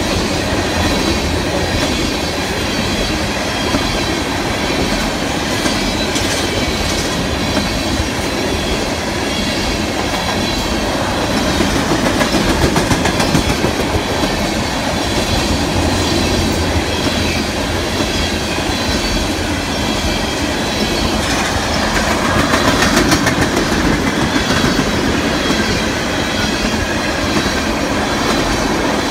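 Freight train of empty tank cars rolling past at close range: a steady rumble of steel wheels on the rails with clickety-clack and a thin high wheel squeal.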